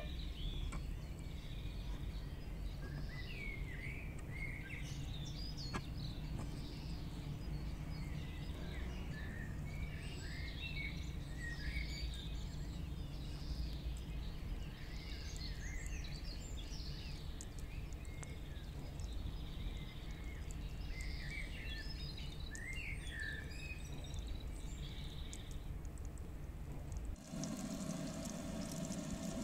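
Birds chirping, with many short calls, over a steady low outdoor rumble. Near the end this cuts to hot oil sizzling in a pan as a stuffed beef roll goes in.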